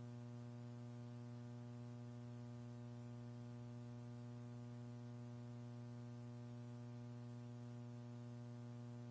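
Steady electrical mains hum with a buzzy stack of overtones on the mission-control commentary audio feed.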